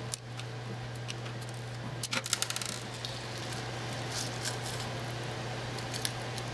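A steel-shot shotgun shell being cut open and emptied by hand: a quick run of sharp clicks and rattles about two seconds in, with a few faint ticks later, over a steady low hum.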